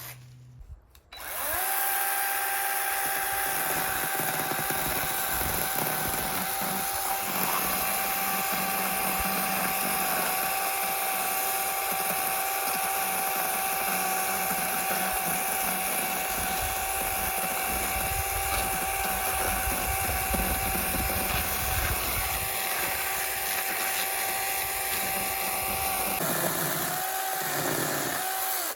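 A power tool's motor spins up about a second in, runs at a steady high speed with a constant whine and hiss for about 25 seconds, then falters and stops near the end.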